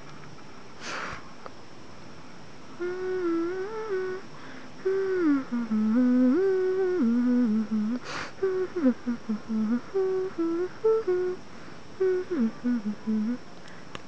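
A person humming a wandering tune in short held notes that step up and down, starting about three seconds in, with a brief hissy breath partway through.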